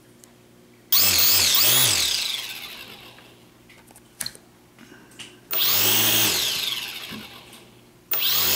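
Syma X5C quadcopter's small electric motors and propellers spinning up in three sudden high whining bursts, each winding down again as the throttle is released. One of the four motors stays dead even though voltage reaches it, which marks that motor as faulty. A few sharp clicks of the multimeter's rotary switch come midway.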